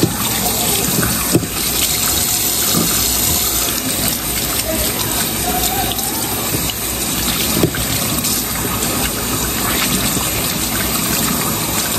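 Kitchen faucet running steadily into a stainless-steel sink while hands are washed under the stream, with a couple of small knocks.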